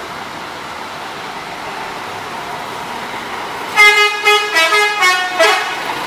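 Tour bus's multi-tone musical 'telolet' horn playing a quick run of about five short notes, starting about four seconds in, after a few seconds of steady rushing noise.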